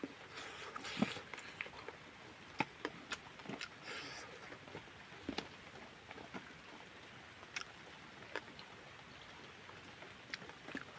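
Close-up eating sounds of a person eating with the hands: chewing, with scattered sharp mouth clicks and lip smacks, and a short crunchy bite about a second in.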